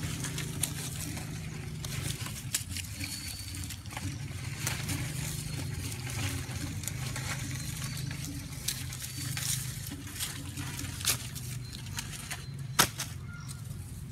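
Outdoor background: a steady low hum with scattered light clicks and rustles, and one sharper click near the end.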